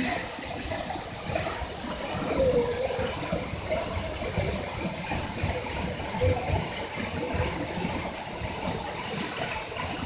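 Steady rush of water falling down a waterfall.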